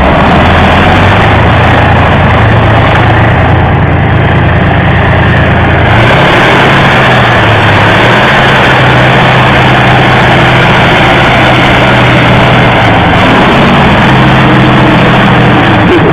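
Tank engine running loud and heavy as the tank crushes a car, its pitch shifting up and down several times as it works.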